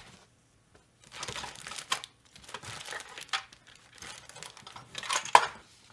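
Sheets of paper rustling and crinkling as pages are handled and turned, with a sharp snap about two seconds in and a louder one near the end.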